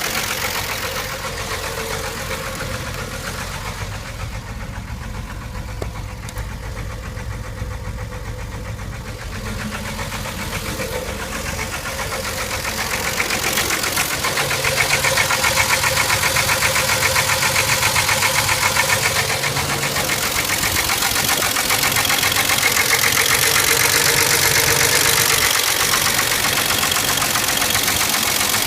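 1989 Jeep Renix 4.0-litre straight-six running with a steady, rhythmic engine knock, louder from about halfway through. The owner takes the knock for a sign that the engine is finished and needs replacing.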